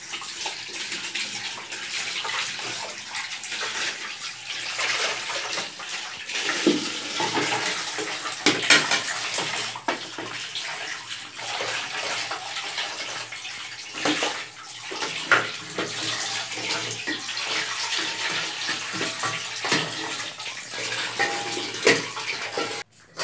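Water running from a tap into a steel sink as dishes are washed under it, with a few sharp knocks of crockery against the sink. The running water cuts off suddenly just before the end.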